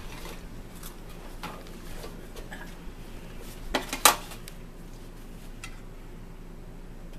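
Forks clinking and scraping against a plate and a bowl during a meal, scattered light clicks with a sharp, loud clink about four seconds in.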